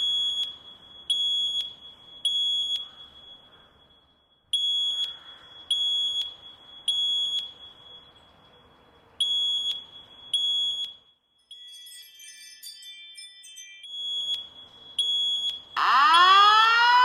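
Fire alarm signal sounding in the temporal-three evacuation pattern: groups of three high-pitched beeps, about one a second, with a short pause between groups. Near the end a much louder rising whoop tone starts.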